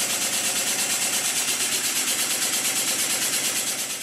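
Model steam engine of about 1896 running fast on compressed air: a rapid, even beat of exhaust puffs over a steady hiss. The sound fades out near the end.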